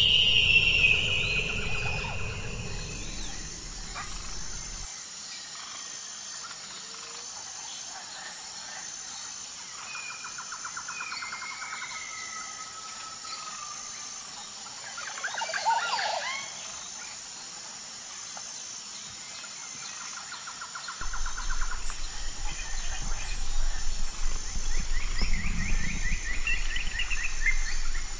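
A nature soundscape: scattered bird chirps and short trills of several kinds over a steady high insect buzz. A low rumble runs under the first few seconds and comes back about two-thirds of the way in.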